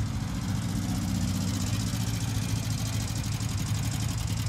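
Air-cooled flat-four engine of a Volkswagen Type 2 bay-window bus running steadily at low revs as the van rolls slowly past.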